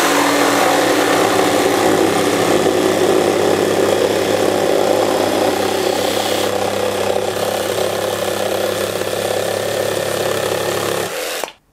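Cordless Makita jigsaws cutting through timber boards: the 40V XGT barrel-grip JV001G and an older brushed 18V top-handle model, their motors humming steadily under a loud rasp of blades sawing through the wood. The sound changes about six and a half seconds in and stops suddenly near the end.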